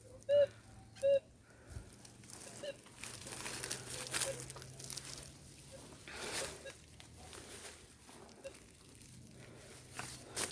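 Two short beeps from a Minelab Gold Monster metal detector about a second apart, then rustling and crunching of dry undergrowth, under a faint steady low hum.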